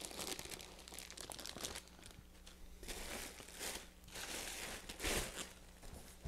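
Plastic packing, a clear plastic bag and bubble wrap, crinkling and rustling as a wrapped telescope tube is lifted and handled. It comes in irregular bursts, the loudest about five seconds in.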